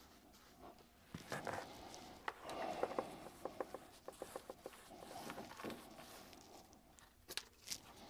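Faint handling and brushing noises: soft rubbing, a quick run of small clicks in the middle, and two sharp clicks near the end, as a foam sponge brush works sealer or paint along a model railroad road and the brush and can are handled.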